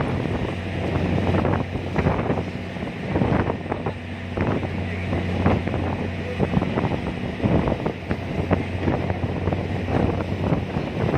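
A ferry's engine droning steadily with a constant low hum, under strong gusty wind buffeting the microphone.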